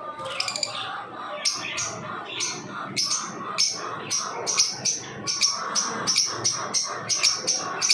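Lovebirds chirping: short, sharp high chirps start about a second and a half in and repeat about three times a second, over a continuous lower chattering.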